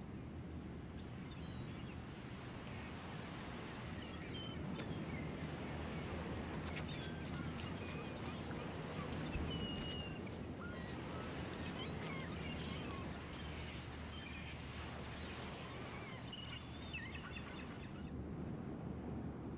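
Outdoor ambience: birds chirping in short scattered calls over a steady low background rumble.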